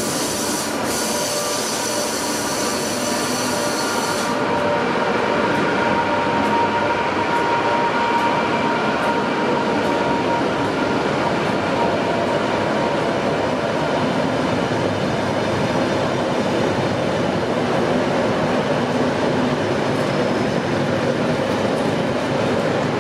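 Passenger train rolling past a platform behind a Class 86 electric locomotive: steady wheel-on-rail running noise with a faint wheel squeal. A high-pitched whine sounds for the first four seconds or so as the locomotive goes by, then stops, leaving the coaches rumbling past.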